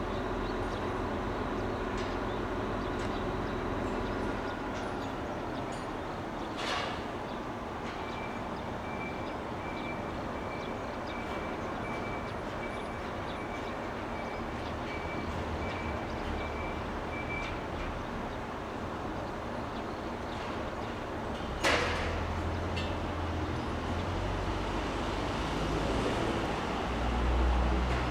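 Steady rumble of passing vehicles, with two sharp clacks and a low rumble swelling near the end.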